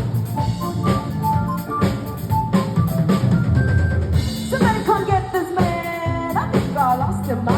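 Music with a drum-kit beat and singing.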